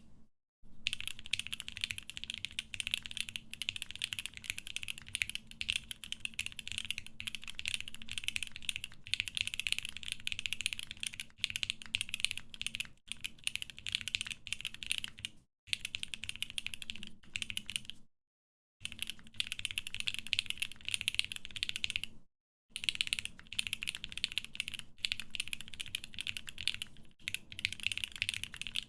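Fast typing on a Geonworks F1-8X, a heavy custom mechanical keyboard with Viton O-ring mounting: a dense, clacky run of keystrokes broken by a few brief pauses.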